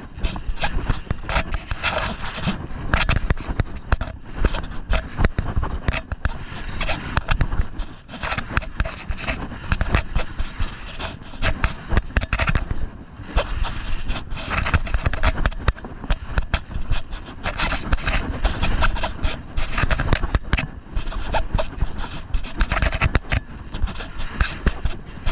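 Skis scraping and chattering over packed, choppy snow on a downhill run, an uneven, steady rush, with wind buffeting the microphone.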